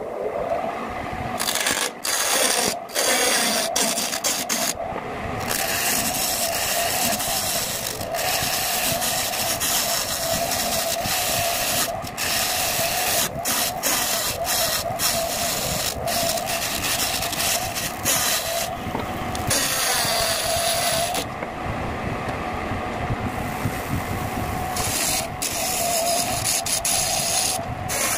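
Wood lathe running with a steady hum while a hand-held gouge cuts the outside of a spinning segmented bowl blank, a continuous coarse scraping and shaving of wood. The cutting breaks off briefly several times, and for a couple of seconds around two-thirds of the way through, as the tool lifts from the wood.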